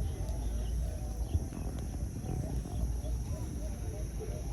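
Many caged zebra doves cooing at once, their short, curling notes overlapping in a continuous chorus over a low background rumble.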